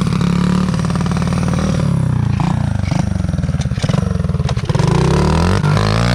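Quad (ATV) engine running and revving, its pitch rising and falling, with a stronger rev about five seconds in.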